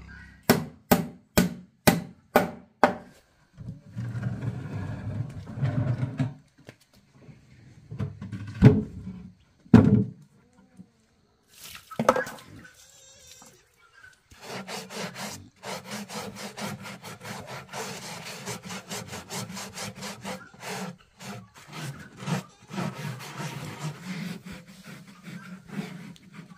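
A hammer knocking on a small wooden house's plank roof, about seven quick blows, with a few heavier knocks a little later. From about halfway in, steady rapid rubbing strokes on the wood as its doorway is scrubbed.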